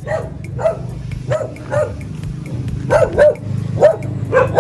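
A dog barking repeatedly, short single and double barks about every half second, over a steady low hum.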